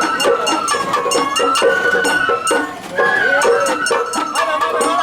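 Sawara-bayashi festival music: a shinobue bamboo flute playing long held notes with small slides, over rapid drum strikes and a ringing metal hand gong.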